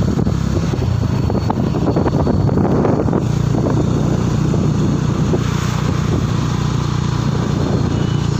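Motorcycle engine running steadily while riding, heard with wind and road noise on the microphone.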